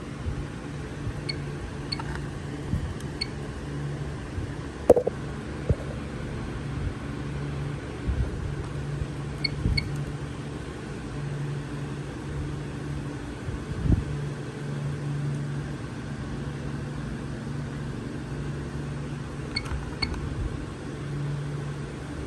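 Napco alarm keypad beeping briefly as its keys are pressed, single short high beeps in small groups with pauses between, over a steady low hum. A knock about five seconds in is the loudest sound.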